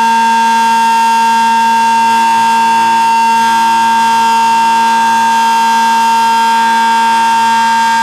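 B&M Model 20-AR-10 outdoor warning siren sounding loudly at full speed. Its chord of tones holds steady with no rise or fall in pitch.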